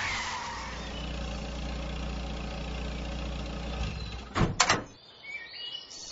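Sound effect of a car engine running steadily, cutting out about four seconds in, then two sharp thuds of a car door, and another loud thud near the end.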